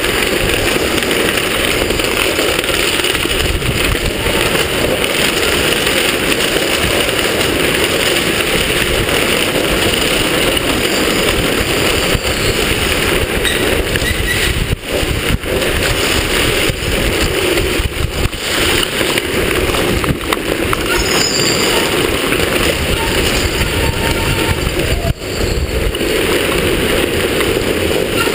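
Drift trike wheels rolling and scraping over stone paving at speed, a loud steady rumble with a few brief drops in the second half.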